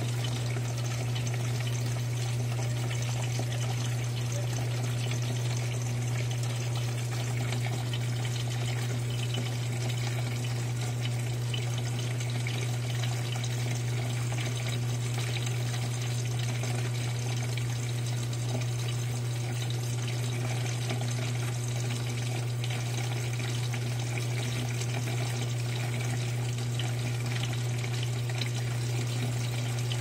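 Electrolux LAI17 17 kg top-load washing machine filling its drum with water over a load of towels: a steady rush of incoming water with a steady low hum underneath.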